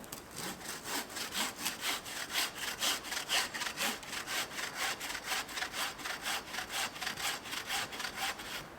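Hand saw cutting through a spruce trunk in fast, steady strokes, about three a second; the sawing stops just before the end.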